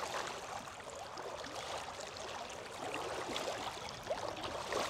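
Shallow water sloshing and trickling with scattered small splashes, from someone wading slowly through the water.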